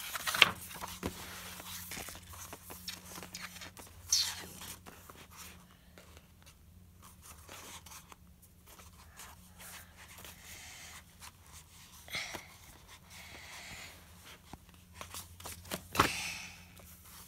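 Paper pages of a picture book being turned and handled: soft rustling and crinkling with a few sharper page flicks, the loudest near the end.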